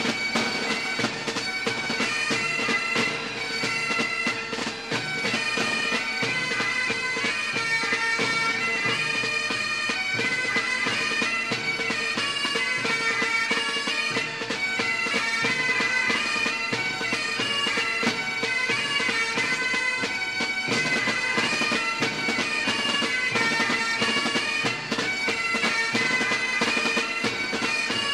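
Bagpipe music: a melody played over a steady drone.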